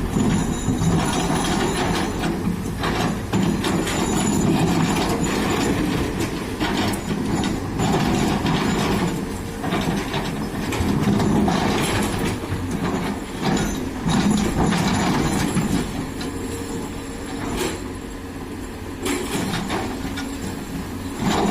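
Doosan DX200A excavator's diesel engine running under load, its sound rising and easing every couple of seconds as the machine works, with knocks and scrapes of stony soil against the bucket and the dump truck's bed.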